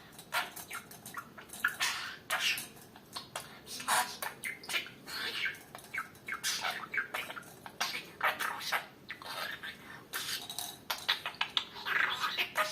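Budgerigar chattering and warbling in quick, broken bursts, mixed with small clicks and clatter from its toys.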